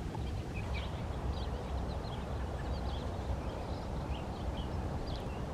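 Small birds chirping in short, high notes scattered throughout, over a steady low rumble.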